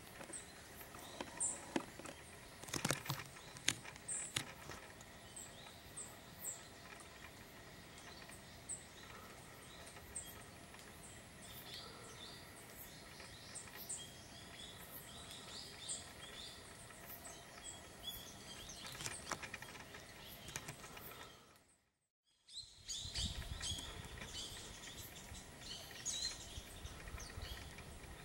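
Iriomote tits calling: many short, high chirps and call notes, with a few sharp clicks about three seconds in. After a brief gap near the end the chirping resumes over a low rumble.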